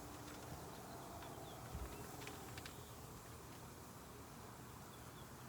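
Faint, steady outdoor background hum, with a few faint high chirps and a couple of light clicks.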